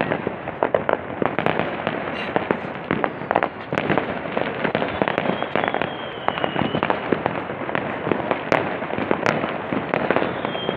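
Fireworks and firecrackers going off in rapid, irregular succession, many pops and bangs overlapping into a continuous crackle. A thin falling whistle comes about halfway through.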